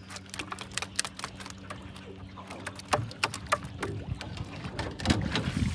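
Clicks and knocks of a line being hauled in hand over hand against the side of a small boat, over the steady low hum of the idling boat motor. Water splashes near the end as the catch nears the surface.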